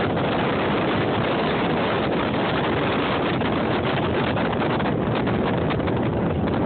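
Wind buffeting the phone's microphone on a moving boat: a steady rush of noise with the boat's run through the water beneath it.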